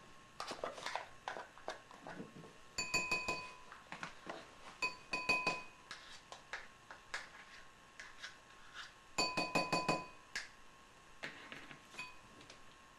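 A utensil clinking against a glass bowl in quick runs of ringing taps, three clusters about 3, 5 and 9 seconds in, with scattered lighter knocks between.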